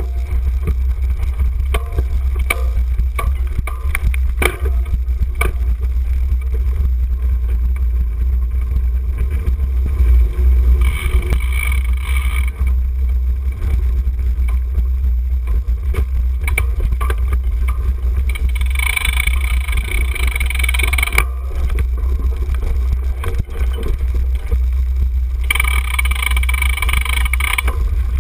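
Ride noise picked up by a camera mounted on a cyclocross bike's handlebars as it is ridden over grass and dirt: a constant heavy rumble of wind and vibration, with frequent rattles and knocks from the rough ground. Three times, near the middle, about two-thirds in and near the end, a higher buzzing hiss rises over it for a second or two.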